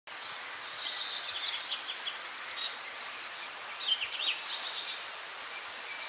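Small birds twittering: quick runs of high chirps in two bursts, the first about a second in and the second about four seconds in, over a steady background hiss.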